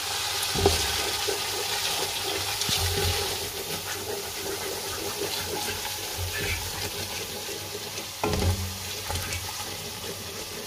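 Masala paste sizzling in hot oil in a pan while a wooden spoon stirs the freshly added ground spices into it, with two knocks of the spoon against the pan, one near the start and one past the middle.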